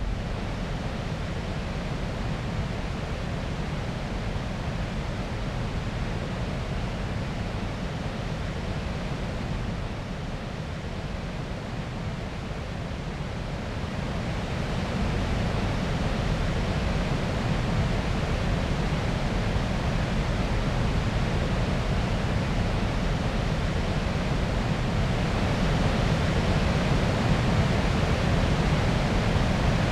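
Steady rushing of water, an even roar that grows a little louder about halfway through.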